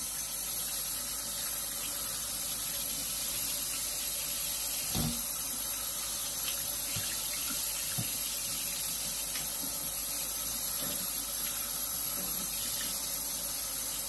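Kitchen faucet running steadily into a stainless steel sink as shrimp are rinsed under the stream, with one low thump about five seconds in.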